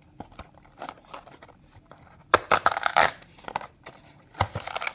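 Toy car packaging being opened by hand: small clicks and handling noises, with a louder burst of tearing and rustling about halfway through.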